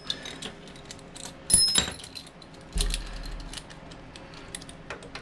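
Small metal hand tools clinking on a VW Beetle front beam's set screw as a socket driver is fitted to it. Scattered light clicks, a ringing metallic clink about a second and a half in, and a dull knock soon after.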